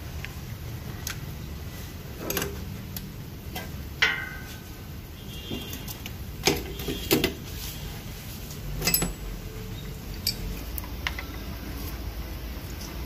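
Scattered metallic clinks and knocks of tools and parts being handled during a filter change, one about four seconds in leaving a short ringing note, over a low steady hum.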